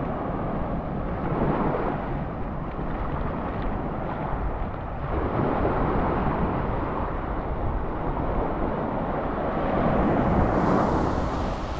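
Wind rumbling on the microphone over the wash of sea surf, swelling and easing every few seconds.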